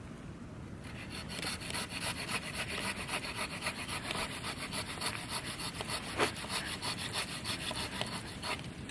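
Hand saw cutting through a tree limb in rapid, even back-and-forth strokes, starting about a second in.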